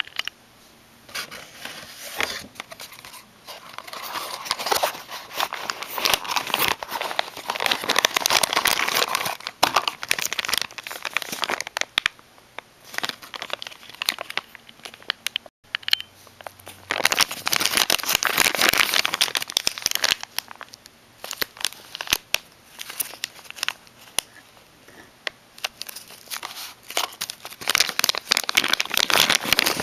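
Packaging crinkling and rustling as it is handled and opened to unbox a figurine. It comes in several long bursts of crackling with quieter handling between them.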